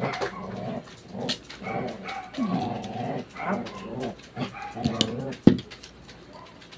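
Oyster shells clicking and scraping as they are handled and pried open, with one sharp click a little past five seconds in, over short whining, pitched vocal sounds that come and go.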